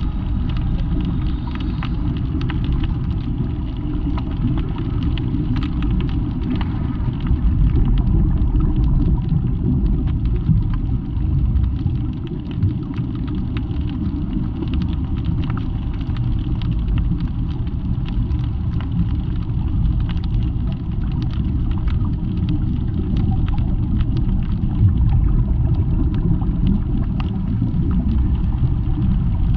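Steady low rumble of water and streaming air bubbles, as heard by a camera under the sea, with faint scattered clicks.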